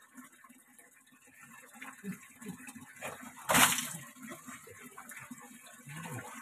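Water being scooped and handled in a small plastic basin with a dipper, then a single loud splash about halfway through as a dipperful is poured during a bucket bath.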